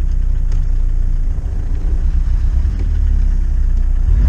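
Jeep Cherokee's diesel engine running under way, heard from inside the cabin: a steady, deep rumble of engine and road, its pitch rising and falling slightly.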